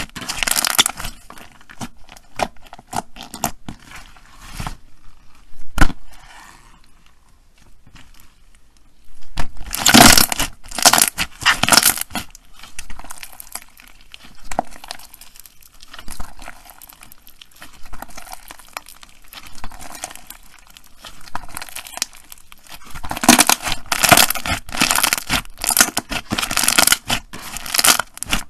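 Clear slime mixed with pink beads and glitter being squeezed, folded and stretched by hand, giving bunches of quick clicky crackling. The crackling is loudest about ten seconds in and again in the last few seconds, with one sharp click about six seconds in.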